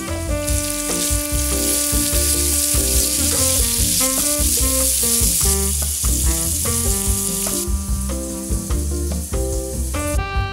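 Chopped tomatoes, sweet peppers and onion sizzling in a hot sauté pan, starting just after the tomatoes go in; the sizzle weakens about three-quarters of the way through and stops near the end. Background music plays underneath.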